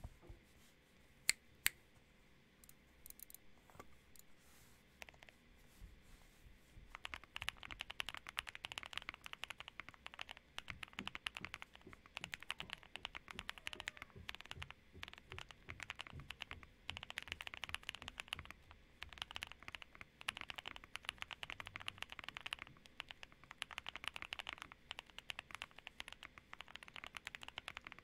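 Typing on a QK65 mechanical keyboard fitted with Boba U4T tactile switches in a POM plate and DCX keycaps, a rapid run of keystrokes with a marbly sound. Two sharp clicks come near the start, and steady fast typing begins about seven seconds in.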